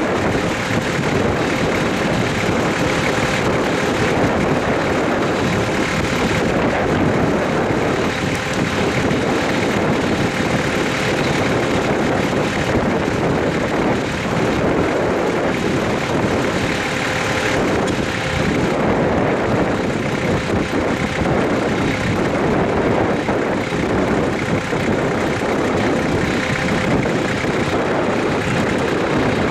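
Steel wheels of a long rake of coal hopper wagons rolling past on the rails: a steady, unbroken rolling noise. A faint thin steady tone runs under it for the first half and stops about eighteen seconds in.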